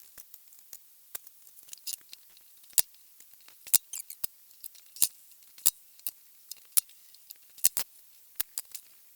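Irregular sharp metallic clicks and clinks, about one or two a second, of steel cylinder head studs and tools being handled as the studs come out of a Classic Mini engine block.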